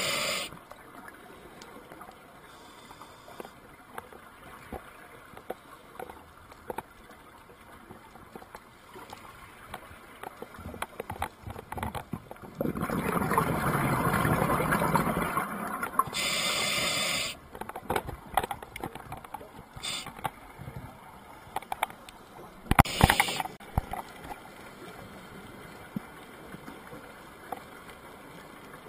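Scuba diver breathing through a regulator underwater: a hiss of inhaling at the very start, a long bubbling exhale about halfway through followed by another inhaling hiss, and a short hiss about three-quarters through. Faint clicks in between.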